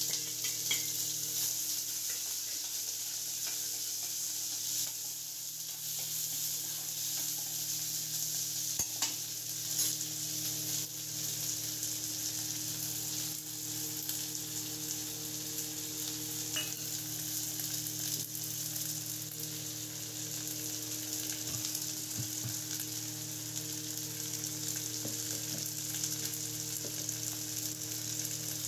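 Chopped onions frying in hot oil with cumin seeds in a steel kadhai: a steady sizzle, with a few short clicks.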